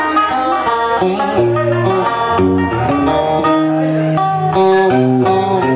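Vietnamese đờn ca tài tử music: a plucked string instrument playing a melodic run of single notes in quick succession.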